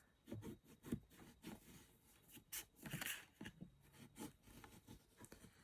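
Faint, intermittent rubbing and light taps of fingers smoothing and creasing a glued seam of card stock.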